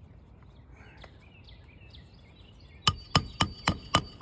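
Hammer driving a roofing nail through asphalt shingles: quick, even strikes about four a second, each with a metallic ring, starting about three seconds in.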